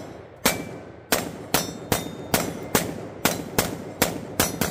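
Budget AR-15 rifle with polymer parts firing steel-case ammunition in rapid semi-automatic shots, about eleven in all at roughly two to three a second, each shot with a short echoing tail.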